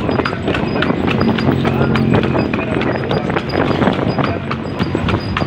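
Hooves of a carriage horse clip-clopping on an asphalt street as it trots, pulling a tartanilla, in a quick, steady rhythm.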